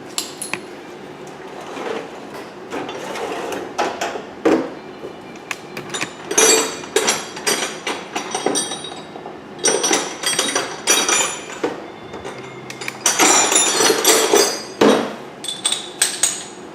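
Metal tools clanking and striking on metal while working on a car's front wheel hub: scattered hard hits and clusters of clattering blows, several with a bright metallic ring.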